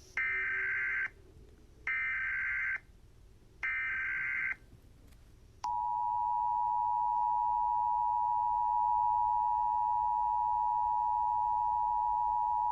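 Emergency Alert System header: three short buzzy SAME data bursts about a second each, then, just under six seconds in, the steady two-tone EAS attention signal starts and holds.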